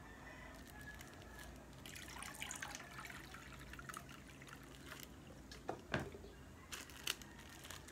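Water poured from a plastic pitcher into a clear plastic bag, a soft trickle as the bag fills for ice. A few sharp clicks of the plastic being handled near the end.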